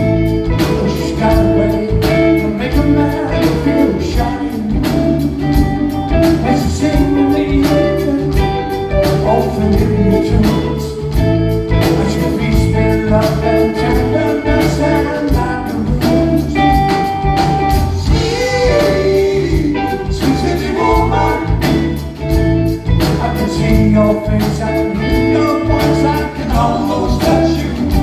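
A rock trio playing live: electric guitar, electric bass and drum kit over a steady beat.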